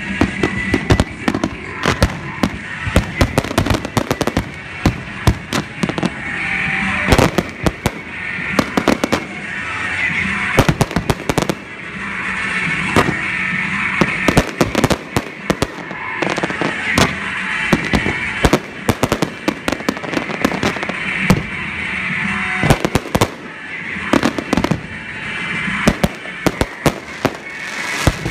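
Professional aerial fireworks display: shells bursting in quick succession, dozens of sharp bangs with no real pause.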